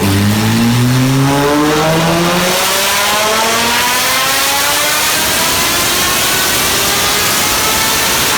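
Porsche 911 GT3's naturally aspirated flat-six, with a modified exhaust, running at full throttle. The revs climb steadily and without a break for about eight seconds.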